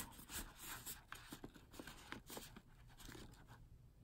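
Faint rustling, with a series of light taps and scrapes, as a printed paper card is handled and slid back into a paperboard pocket.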